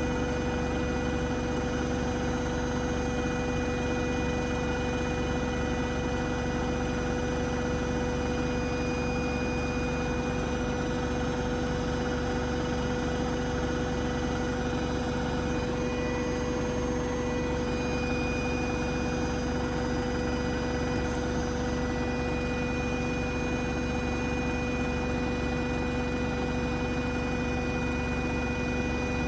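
Beko WTK104121A front-loading washing machine in a high-speed spin, its motor and drum giving a steady, even hum with a constant whine. The spin is running smoothly.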